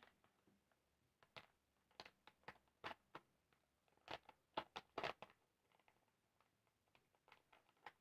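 Small cardboard chip box being handled and opened by hand: a scatter of sharp clicks and crinkles, thickest about four to five seconds in.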